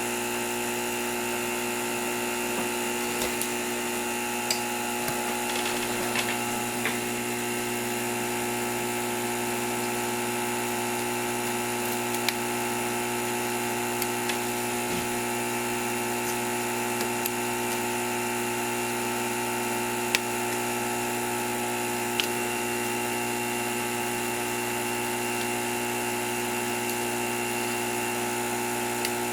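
A steady hum from a small electric motor, made of several fixed tones, with a few sharp small clicks and taps scattered through it.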